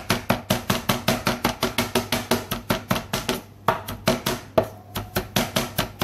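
Cleaver chopping fresh parsley on a plastic cutting board: a rapid, even run of knocks, about five or six a second, with a brief pause a little past halfway.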